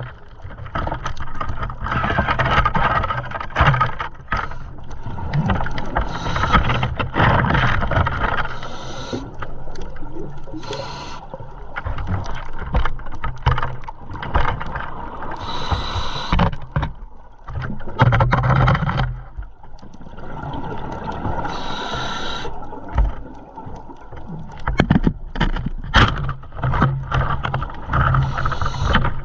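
Underwater noise heard through a diver's camera housing: a steady low hum, with rushing, bubbling bursts every few seconds.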